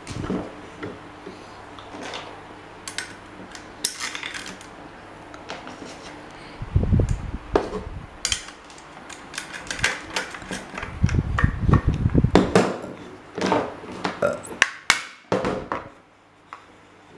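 Metal parts and hand tools clinking and knocking in irregular handling noises, with a few heavier thuds about seven and eleven to twelve seconds in.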